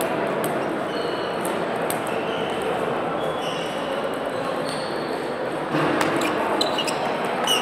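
Table tennis balls clicking and pinging on tables and bats at several tables around the hall, scattered through a steady murmur of voices.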